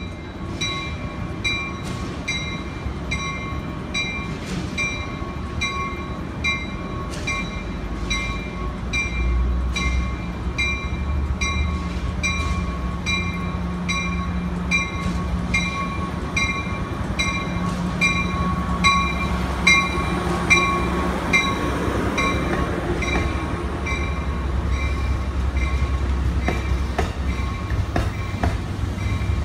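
Amtrak Pacific Surfliner passenger train rolling slowly into the station under a steady low rumble, while a warning bell rings evenly about twice a second. A few sharp wheel clicks come near the end as the cars pass.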